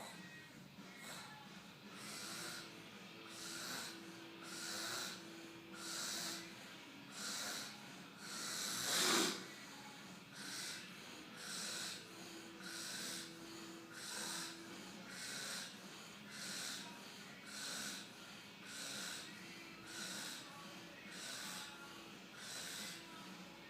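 Man snoring loudly, a regular rasping snore repeating about once every second, with one much louder, sharper snort about nine seconds in.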